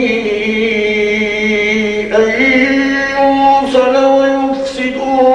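A man's voice reciting the Quran in a slow melodic chant, drawing out long held notes with ornamented turns of pitch.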